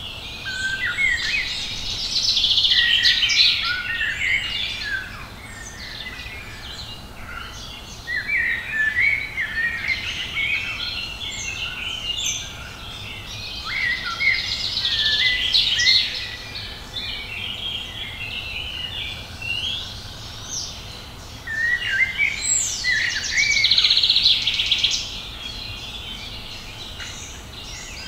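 Songbirds singing: bursts of quick, high, warbling and chirping song a few seconds long, coming back every several seconds, over a steady low rumble.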